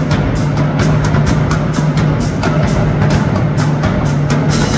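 High school marching drumline playing together: snare drums, tenor drums, bass drums and hand crash cymbals in a fast, steady rhythm of strokes several times a second.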